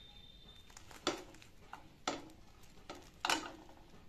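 Three clattering knocks about a second apart, the last the loudest, as a grilled sandwich is taken out of a nonstick frying pan and the pan and utensils are knocked about.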